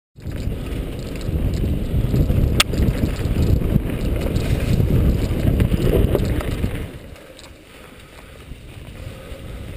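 Mountain bike ridden over a leaf-covered trail, heard from a camera on the rider: wind buffeting the microphone and the bike rattling over the ground, with a sharp click about two and a half seconds in. The noise eases off about seven seconds in.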